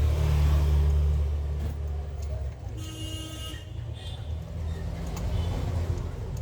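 Road traffic passing outside: a low engine rumble, loudest in the first two seconds, with a short car-horn toot about three seconds in.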